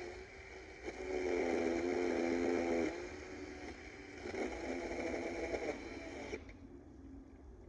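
DeWalt 20V battery chainsaw's electric motor running in bursts of a second or two, its whine wavering in pitch, then stopping about six seconds in.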